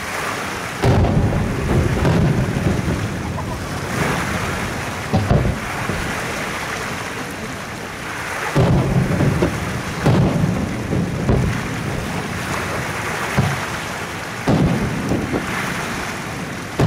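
Aerial fireworks shells bursting in a string of deep booms a second or a few seconds apart, each trailing off in a long rumble.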